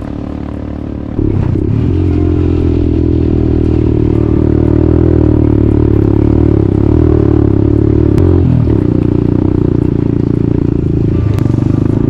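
Trail motorcycle engine running while riding along a gravel road, getting louder about a second in, with a brief drop in engine pitch about eight seconds in.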